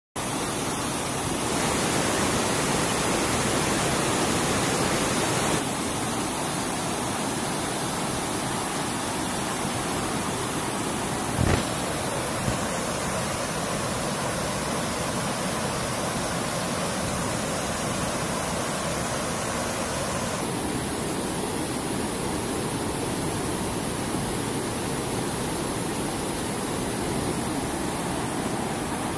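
River water rushing over rocks in shallow rapids, a steady rushing noise, somewhat louder between about two and six seconds in. About eleven seconds in there is a sharp knock, then a lighter one a second later.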